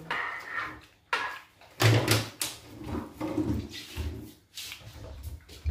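Short knocks and plastic crackles as a plastic mineral-water bottle is twisted open and handled at a table, loudest about two seconds in.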